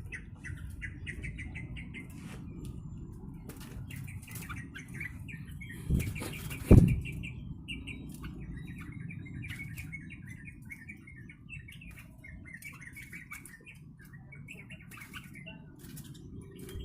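Caged yellow-vented bulbul (trucuk) chirping in quick, bubbly phrases all through, with fluttering and two loud thumps about six and seven seconds in, over a steady low rumble.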